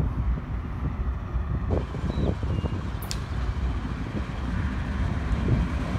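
Norfolk Southern diesel freight locomotives approaching, a steady low rumble of engines and wheels on rail.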